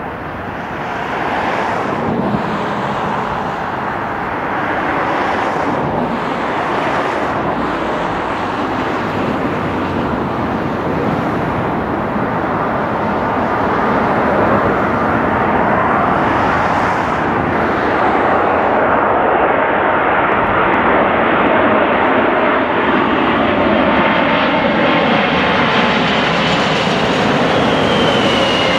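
Boeing 747-400 airliner's four Rolls-Royce RB211 turbofan engines on final approach: a rushing jet noise that grows steadily louder as the aircraft nears and passes low overhead, with tones falling in pitch in the second half and a high whine near the end.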